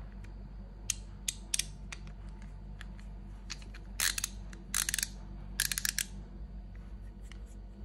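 Craftsman ratcheting screwdriver's ratchet clicking: a few single clicks, then several short rapid runs of clicks as the handle is turned back and forth. A steady low hum runs underneath.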